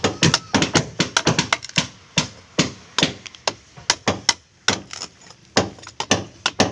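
Claw hammer striking a chisel in quick taps, chipping old putty out of a wooden boat hull's seam. The strikes come fast for about two seconds, then slow to about two a second.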